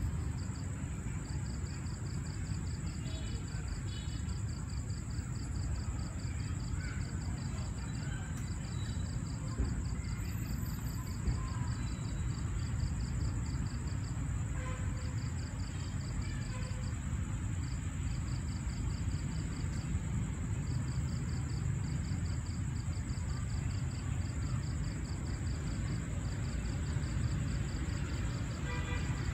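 Crickets chirping in fast pulsed runs broken by short pauses, over a steady high whine and a low background rumble.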